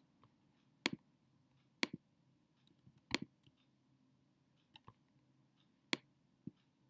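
Computer mouse clicking: short, sharp single clicks, some in quick pairs, roughly one a second.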